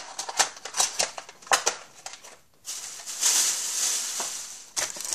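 Trading card packs being handled on a desk: a series of light taps and clicks, then about two seconds of steady rustling of the packs' wrappers, and a few more clicks at the end.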